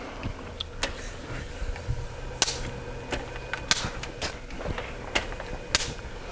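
Handling of a softbox on a studio light stand as it is swung into position: about six scattered sharp clicks and knocks a second or so apart, over a low steady hum.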